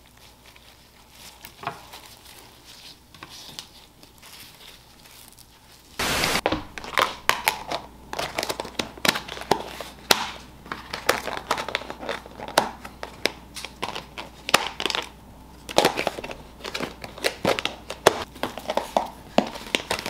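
Quiet faint handling for about six seconds, then thin clear plastic takeout containers crinkling and clicking as they are handled and packed with kimbap, a dense run of quick crackles.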